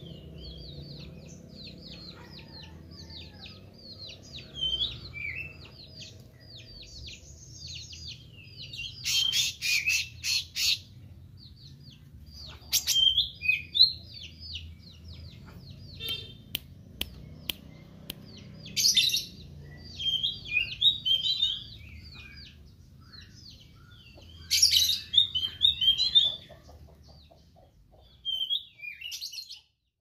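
A caged meranti songbird in full song: a long run of quick, high chirps, then several loud bursts of rapid twittering song, with a few sharp clicks in between.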